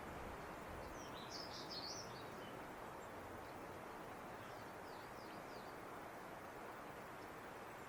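Robin singing: a short, high, twittering phrase about a second in, then fainter high notes around the middle, over a steady hiss of background noise.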